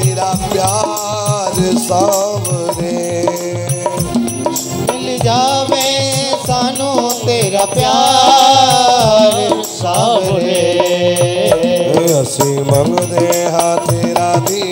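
Instrumental interlude of a Hindi devotional bhajan: a wavering melodic lead over a steady hand-drum beat, loud and continuous.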